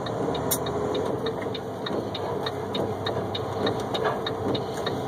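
Steady engine and road noise inside a truck cab driving a rain-soaked highway, with a run of quick light ticks, several a second.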